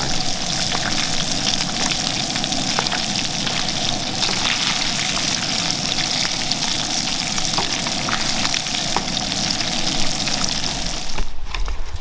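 Shake 'n Bake–coated salmon chunks sizzling steadily in hot butter-flavored Crisco and bacon grease in a frying pan, with scattered small pops. The sizzle cuts off suddenly near the end.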